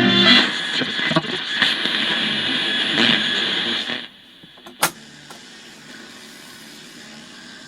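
1968 Grundig RF261U radio's loudspeaker giving loud static and noise with no station, on the AM band. About four seconds in, the noise suddenly drops to a faint hiss, and a sharp click follows about a second later.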